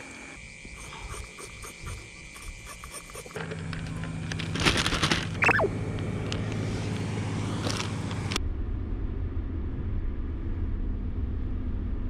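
Steady engine and road hum of a Honda N-VAN kei van being driven, starting about three seconds in and turning duller and lower, as heard inside the cabin, about eight seconds in. Before it, faint clicks; a brief falling squeal about five seconds in.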